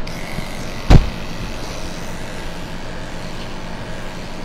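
Electric dog grooming clippers running steadily with a motor hum as they trim a springer spaniel puppy's head, with one sharp thump about a second in.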